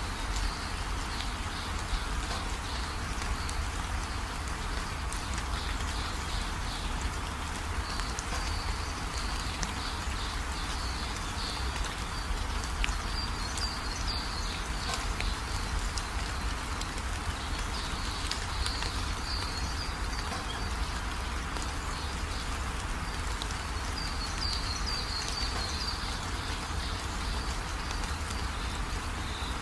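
Hens pecking scattered grain off packed dirt, with grain pattering down by hand, over a steady hiss and low rumble. Bursts of high chirping come and go every few seconds.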